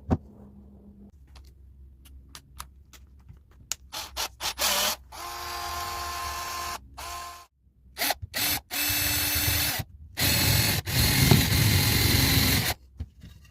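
A tool boring a hole in wood: a few clicks, then several loud bursts of whirring and grinding with a steady whine, each cutting off suddenly.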